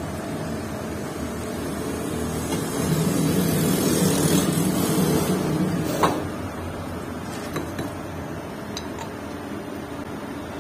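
Lathe running with a steady hum that swells louder around the middle, and a sharp knock about six seconds in.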